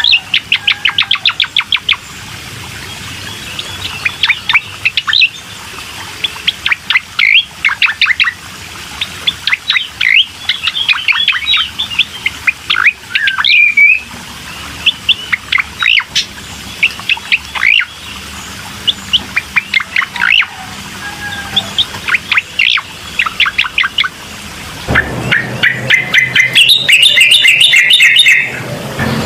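A cucak koreng singing in rapid bursts of sharp chirps and rattling trills with short gaps between phrases. Near the end the song turns louder and denser, over a low hum.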